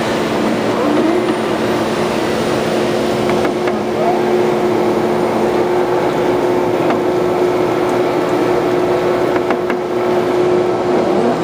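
A machine churning damp sawdust in its steel hopper runs steadily, with a constant mid-pitched hum over a rushing noise and a few faint clicks.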